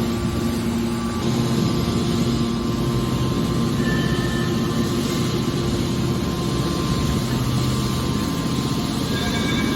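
Hydraulic metal baler running steadily, its pump and motor giving a constant hum over mechanical noise.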